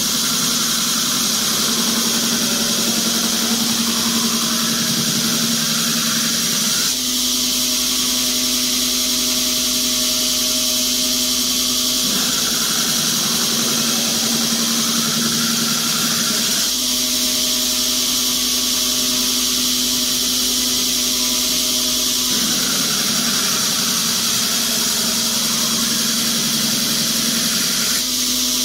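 A 2x72 belt grinder running a 40-grit belt with an AEB-L stainless steel knife blade pressed against it, giving a steady, loud grinding hiss over the motor's hum. The grinding tone shifts every five seconds or so as the blade is worked across the belt.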